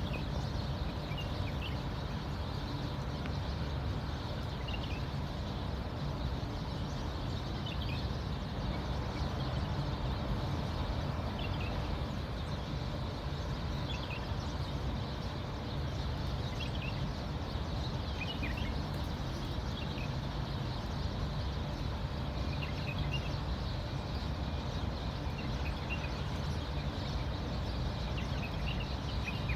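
Small birds chirping in short, high calls that come every few seconds over a steady low rumble of background noise.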